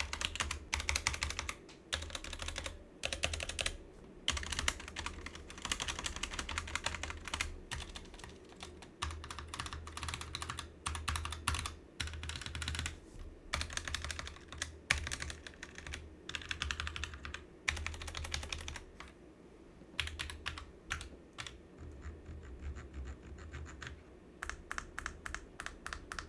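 Typing on a Roccat Vulcan 122 AIMO mechanical keyboard with Roccat's own Titan tactile (brown) switches and low-profile keycaps: rapid key clacks in fast runs broken by brief pauses.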